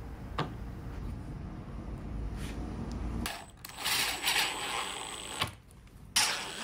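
Cordless impact driver driving a screw into a plywood router jig: a rattling run of about a second and a half a little past the midpoint, then a click and a shorter burst near the end.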